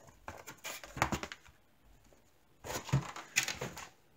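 Cardboard box and plastic-bagged kit parts handled, rustling and crinkling in two short spells with a quiet pause between them.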